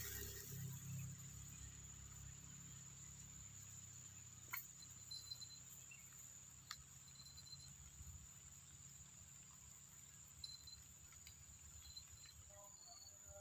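Quiet rural ambience: a steady high-pitched insect drone, with a few short chirps and a couple of sharp clicks.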